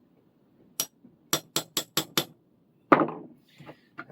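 Hammer blows knocking the small retaining pin out of a Record No. 0 vise: a single sharp strike, then a quick run of five at about five a second, then a heavier knock with a short ring about three seconds in.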